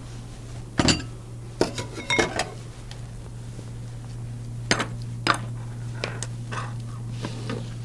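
Kitchen dishes and utensils clinking and clattering as they are picked up and set down on a counter: a few sharp knocks, the loudest about a second in, a quick cluster around two seconds and two more near five seconds, then lighter taps.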